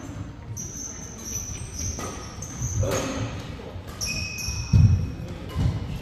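Badminton shoes squeaking in short high chirps on a court mat, with sharp racket strikes on the shuttle during a doubles rally. The loudest moment, a little before the end, is a heavy thud of a player's foot landing.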